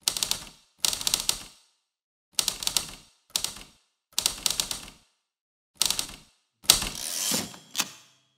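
Typewriter keys clacking in six quick bursts with pauses between them. About two-thirds of the way through comes a louder strike and a longer rattle of about a second, like the carriage being returned, ending in one last clack with a faint ring.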